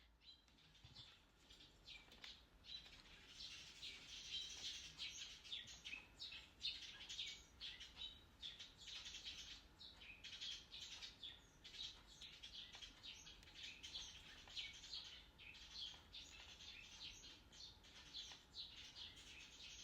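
Faint, irregular scratching strokes of a hand tool working at close range, several a second.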